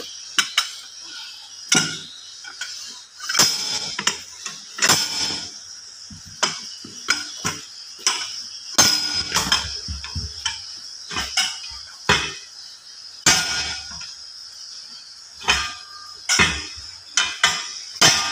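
Steel tyre-lever bars striking and prying against the steel rim of a tubeless lorry wheel, its bead already broken, as the tyre is worked off: a string of irregular sharp metallic clanks with a brief ring, over a steady high background hiss.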